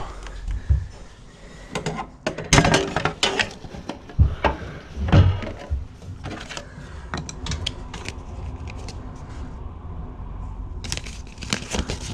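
Irregular knocks, clicks and rattles of hands and a screwdriver working on a stairlift's casing and parts. The loudest knocks come in the first half, with lighter clicks later.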